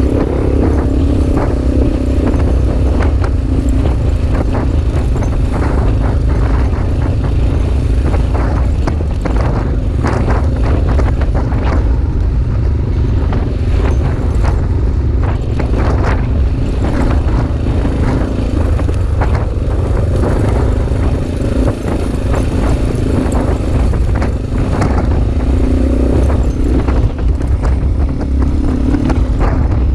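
Off-road motorbike's engine running steadily as it rides a rough stony track, with frequent short knocks and rattles.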